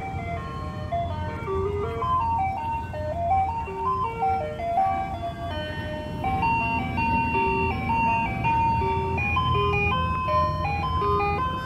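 Ice cream van playing its chiming jingle through its loudspeaker, a simple tune of single stepped notes, over the low running of the van's engine as it pulls up to the curb.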